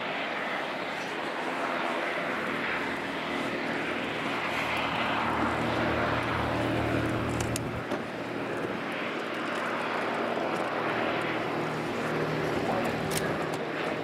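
Piston engines and propellers of two light aircraft, an Auster and an L-19 Bird Dog, droning steadily as they fly overhead together. The drone is loudest around the middle.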